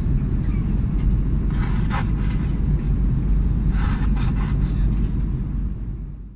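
Airliner cabin noise in flight: the steady low rumble of engines and airflow heard inside the cabin, fading out near the end.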